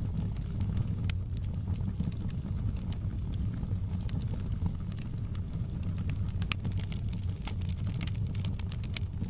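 Wood fire crackling: scattered sharp pops and snaps over a steady low rumble, the pops coming thicker near the end.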